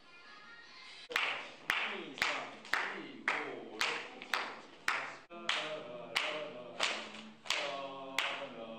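Hand claps keeping a steady beat about twice a second, starting about a second in, with a group of voices calling out in time between the claps: a cymbal squad rehearsing its drill routine without cymbals.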